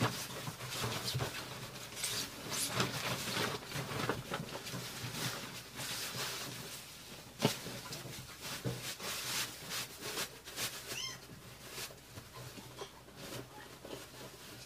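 Bed sheet rustling and flapping as it is spread and smoothed over a mattress, in irregular handling noises with a sharper knock about halfway through.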